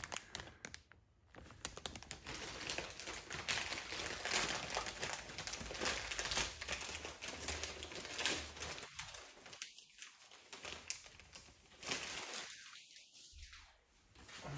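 Packaging crinkling and rustling while a new mower control cable is handled and unwrapped: a dense run of fine crackles that pauses briefly twice near the end.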